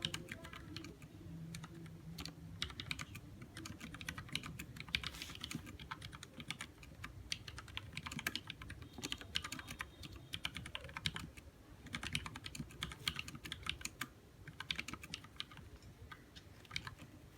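Mechanical keyboard with lubed Cherry MX Black linear switches being typed on: runs of keystrokes in uneven bursts with short pauses between them.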